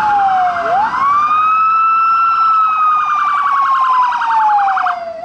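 Emergency-vehicle sirens: one wails, sliding slowly down in pitch and then quickly back up, twice, while a second, rapidly pulsing siren tone sounds over it and cuts off near the end.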